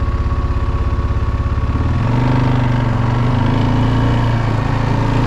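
ATV engine idling with an even, pulsing chug. About two seconds in, the throttle opens and it runs on at a higher, steady pitch.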